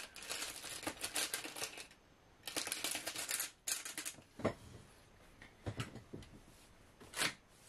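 Hands rummaging through desk things in search of a pen: rapid clicking and rustling in two spells over the first three and a half seconds, then three separate knocks.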